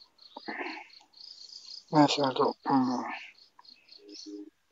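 Crickets chirping in a steady, even rhythm of about five chirps a second. A man's low voice speaks briefly about two seconds in and is the loudest sound.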